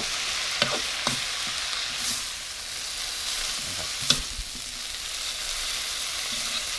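Water spinach stir-frying in a steel wok: a steady sizzle, with the metal spatula clinking and scraping against the pan a few times, loudest about four seconds in.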